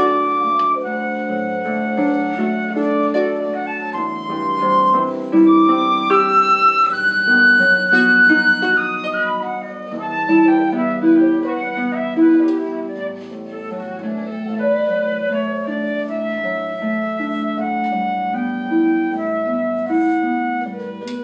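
Concert flute playing a melody of held notes over a plucked harp accompaniment.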